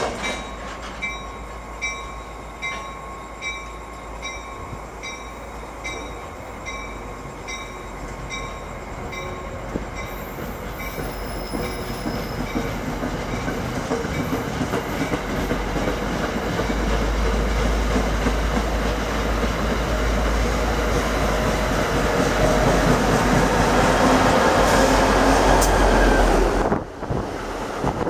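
NJ Transit train passing at speed: steady wheel clicks over the rail joints, about two a second and ringing a little, give way to a rising rumble and rush as multilevel coaches go by close. The rush is loudest near the end and cuts off abruptly.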